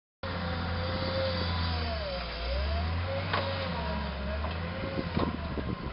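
Volvo wheel loader's diesel engine running under load as it pushes rubble, a steady low drone with a whine that dips and rises in pitch a few times. A couple of sharp clicks partway through.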